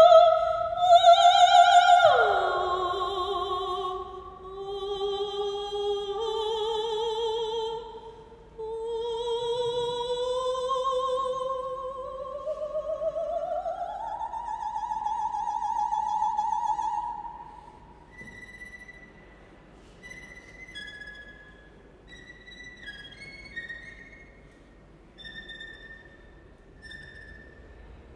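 Operatic soprano singing with a wide vibrato: a long high note that drops sharply about two seconds in, then a slow climb over the next fifteen seconds before she stops. After she stops, the string ensemble plays soft, sparse high notes.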